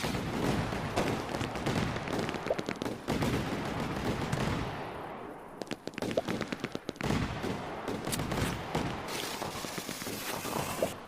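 Fireworks crackling and popping in rapid, dense volleys. The cracks thin out for a moment about five seconds in, then pick up again.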